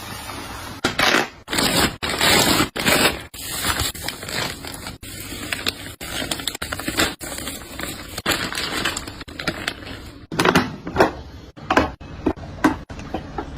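Plastic food packaging crinkling and rustling as groceries are handled, in a series of noisy bursts that cut off abruptly several times.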